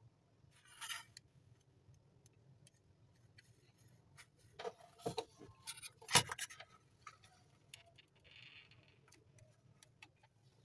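Handling noise: scattered light clicks and knocks as a craft-stick assembly with a small DC motor is moved and set down on a cardboard work surface, with a cluster of louder knocks about five to six seconds in.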